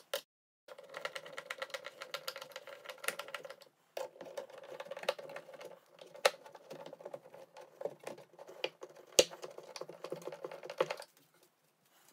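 Hand screwdriver turning the hinge mounting-plate screws into the pre-drilled holes of an Ikea Besta cabinet to get them started: a dense run of small clicks and ticks in several spells, with short pauses between.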